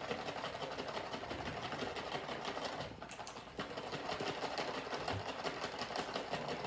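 A plastic ration pouch of sauce mix and water being shaken vigorously: fast, rhythmic rustling and sloshing strokes, pausing briefly about three seconds in before starting again.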